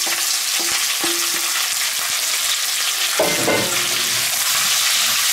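Diced potatoes, carrots and celery sizzling as they fry in hot clarified butter in a cast-iron Dutch oven, stirred with a wooden spoon. A few short ringing clinks from the steel bowl in the first second or so.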